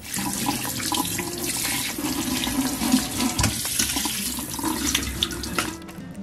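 Kitchen tap running onto raw chicken breasts in a stainless-steel mesh colander in a steel sink as they are rinsed and turned by hand; the water stops shortly before the end.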